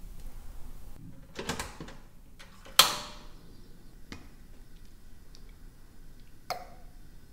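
Kitchen handling sounds from cooking: a quick rattle of clicks, then one sharp knock that rings briefly about three seconds in. A few faint ticks and a lighter knock near the end follow.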